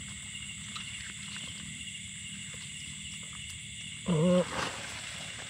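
Steady high chirring of night insects over a flooded rice paddy, with a few faint small ticks as a hand works in the shallow water. About four seconds in, a brief, loud, low wavering call stands out above the chirring.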